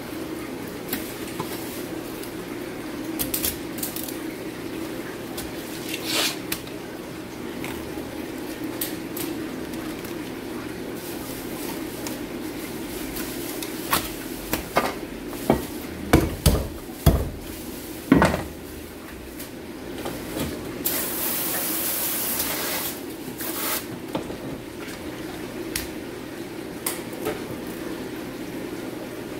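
Filleting knife working a red sea bream on a plastic cutting board: scattered clicks and scrapes of the blade and of the fish being handled, with a run of sharp knocks from knife and board a little past the middle and about two seconds of hissing soon after. A steady low hum lies underneath.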